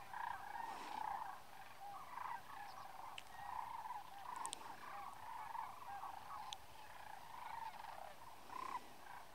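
A large flock of sandhill cranes calling: many overlapping calls in a continuous chorus, with a few faint high ticks over it.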